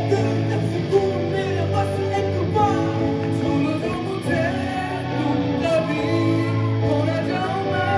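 Music: a rock song with a voice singing over guitar and a steady bass.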